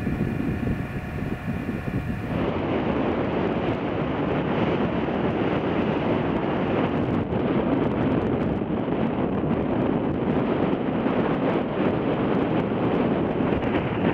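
Wind blowing on the microphone outdoors, a loud, steady rushing noise from about two seconds in. Before that, a quieter steady hum with several even tones.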